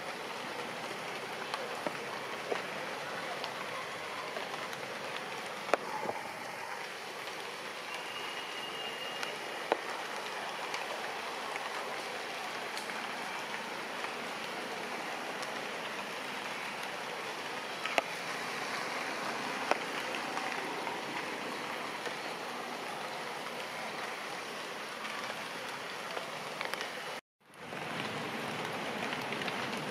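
Steady rain falling on leaves and ground: an even hiss with scattered sharp drip ticks. It cuts out for an instant near the end.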